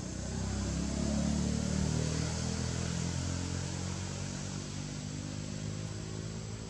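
A motor vehicle's engine running, growing louder to about a second in and then slowly fading.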